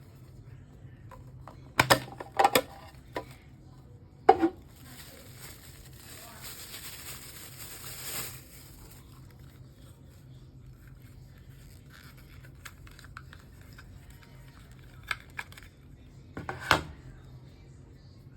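Handling noises from unboxing a Casio F-91W watch. There are several sharp clicks and knocks from hard packaging and the watch, then about four seconds of rustling, then two more clicks near the end.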